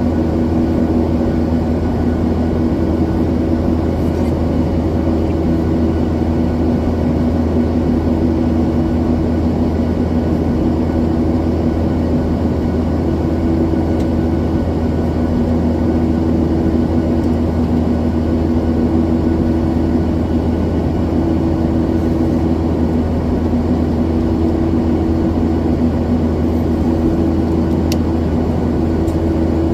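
Boeing 737-900ER's CFM56 jet engines heard from inside the passenger cabin: a loud, steady drone with a low rumble and a pair of humming tones that swell and fade every few seconds.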